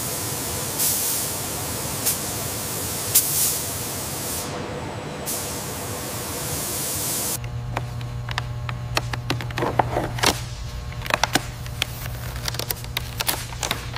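Robotic paint spray guns hissing steadily, with a few brief louder spurts. About seven seconds in the sound changes to a low steady hum with many sharp crackles and ticks: a plastic decal transfer sheet being peeled and smoothed onto the painted panel.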